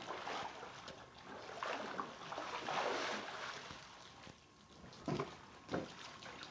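Pool water splashing and sloshing as a swimmer wades to the edge and climbs out, in swells over the first few seconds, then two short sharp slaps near the end.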